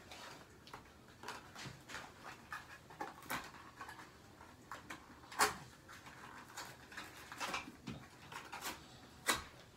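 Faint, irregular clicks and crinkles of a small food-coloring package being handled and opened by hand, with a few sharper clicks, the loudest about halfway through.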